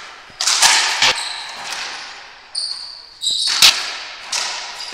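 Racquetball rally: several sharp smacks of the ball off racquets and the court walls, each ringing out in the enclosed court. A brief shoe squeak on the hardwood floor is heard about halfway through.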